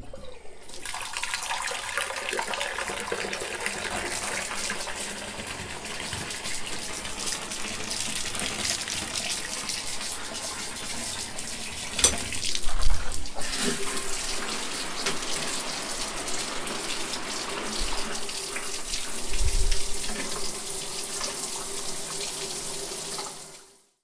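Water running steadily, like a tap into a sink. About halfway there is a sharp click, after which a steady low hum joins in, and the sound fades out just before the end.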